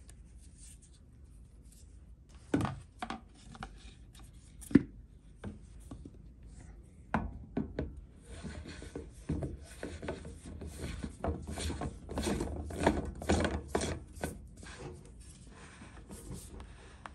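Plastic RO filter housing for the carbon filter being handled and screwed by hand onto its cap: a few separate knocks, then from about eight seconds in a long stretch of plastic scraping on plastic as the threads turn, with small clicks.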